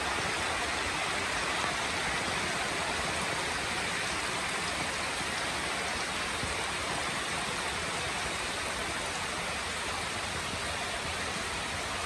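Rain falling steadily: an even hiss with no thunder or separate loud drops.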